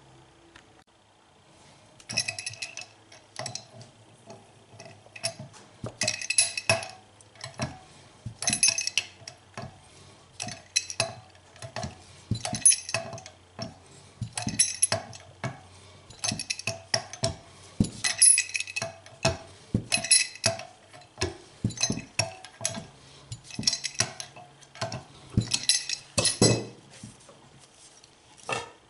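Steel parts of a Yanmar VIO35-2 excavator's hydraulic cylinder clinking and ringing as the cylinder head is worked back and forth and slid along the chrome piston rod by hand. The sharp metallic clinks come in irregular clusters of several a second, starting about two seconds in.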